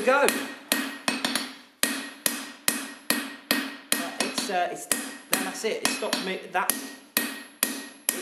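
Hand hammer striking a red-hot grade 5 titanium bar on a steel anvil, about two to three blows a second, each blow followed by a short ringing tone from the anvil.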